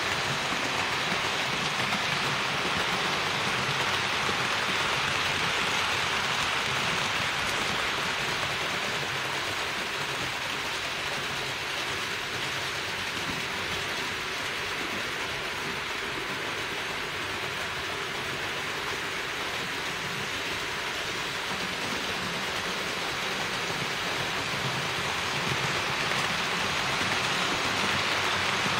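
HO-scale model train running on Roco Geoline track: a steady rushing whir of wheels and motor, a little louder when the coaches pass close, at the start and again near the end.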